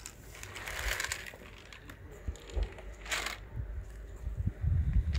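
Dry cat kibble pouring from a plastic bottle onto paving stones in two short rattling pours, with cats crunching the dry food.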